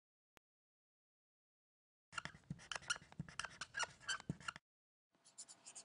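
Felt-tip marker scribbling rapidly back and forth on a white drawing surface as it shades in a block, a quick run of scratchy strokes. It stops briefly and then resumes more quietly near the end.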